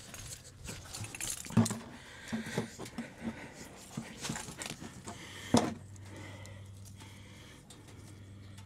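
Knocks and light rattling as an empty plastic oil container is handled and set in place under the car, with two sharper knocks, one about a second and a half in and one a little past halfway.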